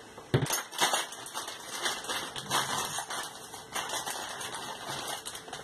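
Irregular clicks and knocks of garbage disposal parts being handled and fitted together by hand. The sharpest knocks come about half a second in.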